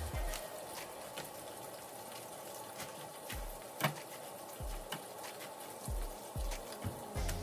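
Hands stripping leafy greens from their stems over a plastic cutting board: scattered crisp snaps and rustles with a few soft thumps on the board, the sharpest snap about four seconds in.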